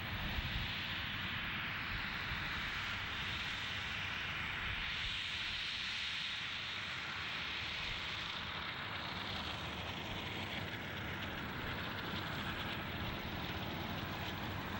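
Airbus A330 jet engines at taxi power as the airliner rolls slowly past and turns away: a steady jet hiss and whine over a low rumble.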